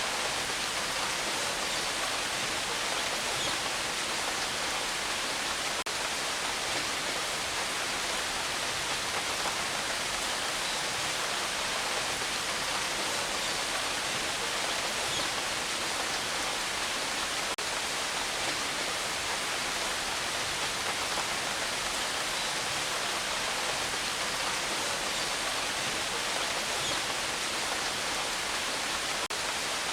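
Steady rain falling, an even hiss with no thunder and a few faint drop ticks.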